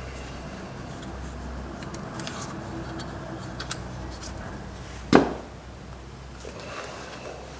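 Handling a lock cylinder being pushed into a new plastic exterior door handle: a few light clicks, then one sharp snap about five seconds in as the lock seats.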